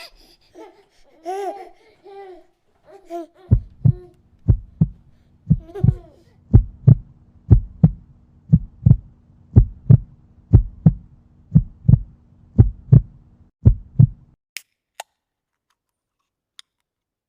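A baby babbling and giggling briefly, then a heartbeat sound effect: double lub-dub thumps about once a second over a faint low hum, stopping about 14 seconds in. A few faint clicks follow.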